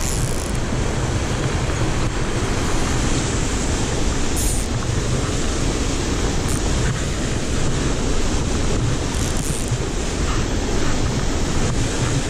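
Steady rush of a mountain stream tumbling over rocks into a pool.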